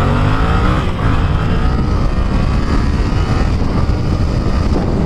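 Yamaha MT-07's parallel-twin engine, restricted to 48 PS, accelerating hard under full throttle. Its note climbs in pitch, drops at a gear change about a second in, and climbs again.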